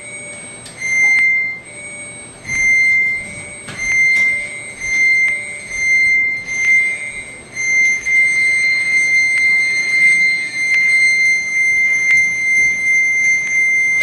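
High electronic beeping tone, sounding in separate beeps about once a second at first, then in quicker pulses that nearly run together from about halfway.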